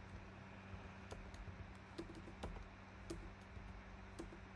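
Faint typing on a computer keyboard: a dozen or so soft, irregular keystrokes, roughly two a second, over a steady low electrical hum.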